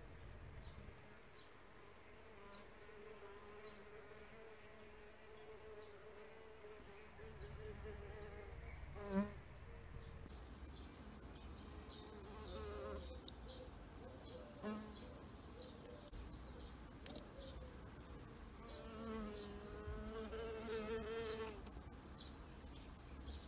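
Bees buzzing in flight: a steady hum that wavers in pitch. A bee passes close about nine seconds in, and the buzzing swells louder near the end.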